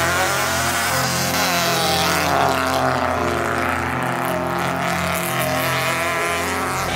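Maruti Esteem rally car launching from the flag start and accelerating away hard on a dirt track, engine revving.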